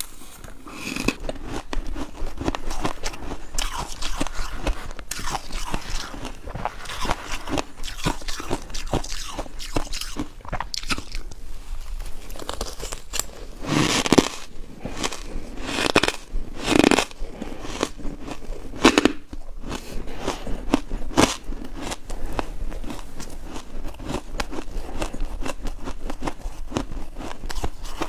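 Close-up crunching of ice being bitten and chewed in the mouth: a continuous run of sharp, irregular cracks, with several louder bites in the middle.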